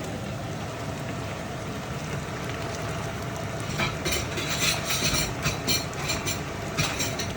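Steady low rumble and hiss of a pot of thick soup cooking on the stove. From about four seconds in, a run of scraping and clinking: a spoon or lid working against the metal pot.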